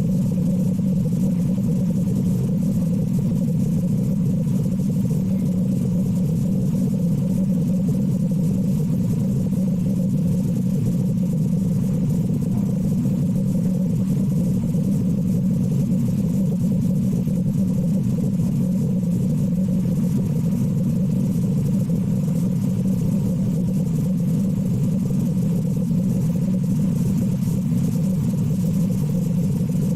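A steady low engine drone running at constant speed, with no change in pitch or level and no distinct breaths or blows standing out.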